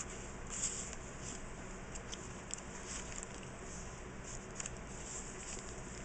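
Paper being handled in a handmade junk journal: a tag card slid out of a tuck spot and a page turned, giving soft rustles and a few faint ticks over a steady background hiss.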